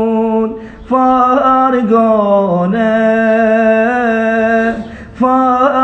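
A man singing a slow Arabic song of parting with no accompaniment, the words 'يجون' and 'فارقونا', drawn out on long held notes with wavering turns. There is a short breath pause about a second in and another near the end.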